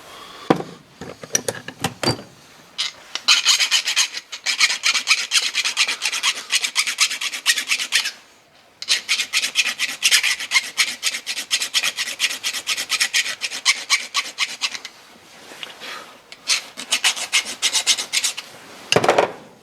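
A hand tool scraping or filing fast and evenly on a workpiece, in three runs of several seconds each. A few knocks come near the start, and a sharp knock near the end.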